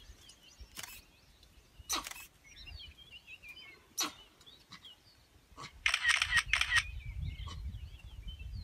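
Camera shutter clicks, single shots a few seconds apart and then a quick burst of about four about six seconds in, over faint birds chirping. A low rumble comes in about five and a half seconds in.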